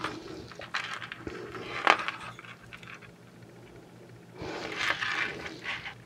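Metal bead-and-bar-link necklace clinking as it is handled. There is a sharp click about two seconds in, and a longer jingling rustle of the chain near the end.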